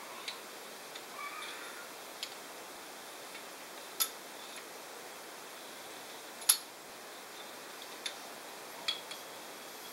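Pushrods being dropped one at a time through the cylinder head onto the lifters, each giving a short sharp metallic click. There are about six clicks, the loudest about six and a half seconds in.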